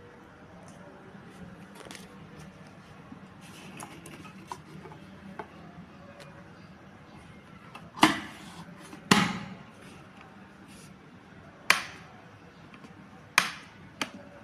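Hard objects being handled: faint rustling and light taps, then five sharp knocks or clacks in the second half, each with a short ring.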